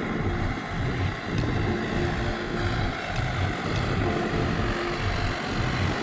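John Deere 5055E tractor's three-cylinder diesel engine running steadily under load as the tractor pushes its blade through deep mud.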